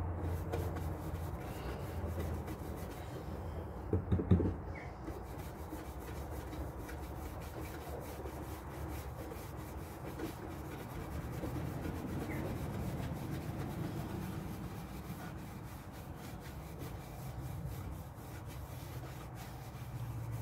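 Round bristle wax brush scrubbing black wax into a painted timber cupboard door, a steady rubbing of bristles on wood, with a short cluster of two or three knocks about four seconds in.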